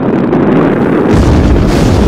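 Sound-designed rocket-engine rumble: a loud, rushing noise that deepens about a second in, as a heavy low rumble and a hiss join it.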